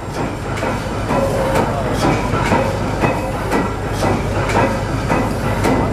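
1914 Snow gas compression engine, with two double-acting pistons and four combustion chambers, running just after being started on compressed air. It makes a continuous low rumble with a regular beat of sharp clacks about twice a second as the big flywheel turns.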